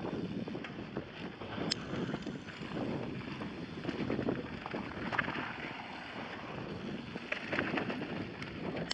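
Wind buffeting the microphone as a mountain bike rolls over a dirt singletrack trail, with scattered sharp clicks and rattles from the bike over the bumps.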